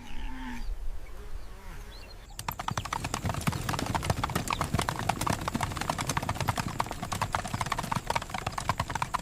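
Hooves of a running wildebeest herd, a dense, fast clatter of hoofbeats that starts suddenly about two seconds in.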